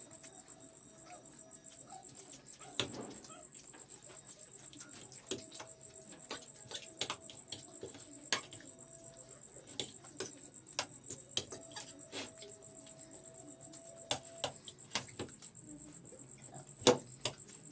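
People eating chowmein noodles: scattered sharp clicks and smacks of chewing and of fingers and food on plates, with a louder pair of clicks near the end. A steady thin high-pitched whine runs underneath.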